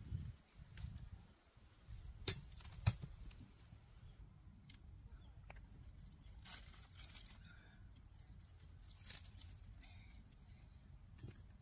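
Faint outdoor ambience with a low rumble, broken by a few sharp knocks, the two loudest about two and three seconds in.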